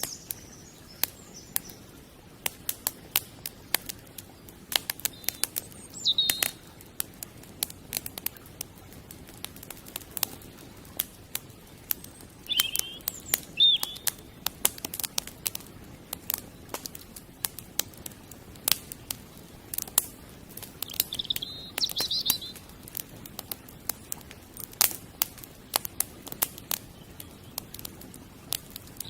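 Wood campfire crackling, with many sharp pops at irregular intervals over a faint hiss. A few short bird chirps come through, about six seconds in, near the middle and again about two-thirds through.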